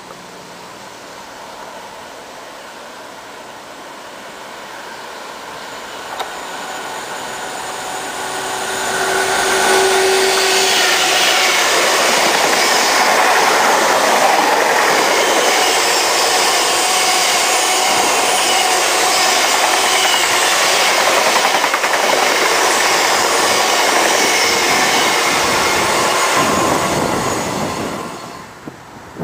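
Freightliner Class 66 diesel locomotive hauling a coal train, approaching and then passing. The sound builds for about nine seconds. The rake of coal hopper wagons then runs past, loud and steady, for about seventeen seconds, before dropping away sharply near the end.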